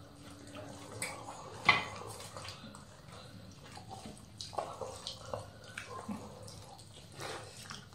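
Quiet wet squelching and smacking of hands mixing rice with mutton curry on banana leaves, and of mouths chewing, with scattered small clicks and one sharper click about two seconds in.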